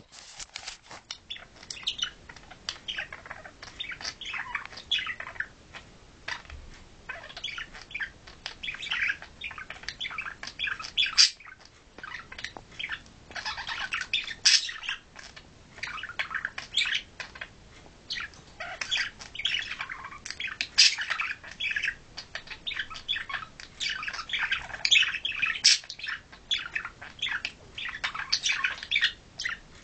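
Budgerigars chattering and warbling nonstop: a fast, jumbled stream of chirps, clicks and harsh squawks.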